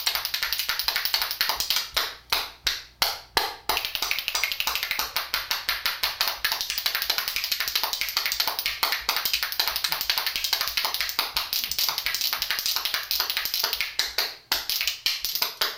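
A pair of metal spoons played as a rhythm instrument: fast, continuous clicking beat, with a few slower, spaced strokes about two to four seconds in and a brief break near the end.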